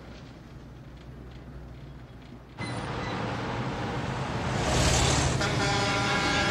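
A faint low hum, then about two and a half seconds in a sudden switch to street traffic: a heavy truck and motorcycles running, with a loud hiss of noise around five seconds in. Near the end a steady sound of several held tones begins over the engines.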